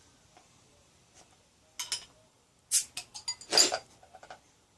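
Clinks and knocks of a glass beer bottle and glassware being handled: scattered sharp clinks about two and three seconds in, and a short rush of noise about three and a half seconds in.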